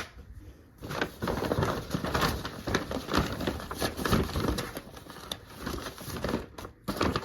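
Packaging being handled: a sharp click, then a few seconds of irregular crinkling and rustling.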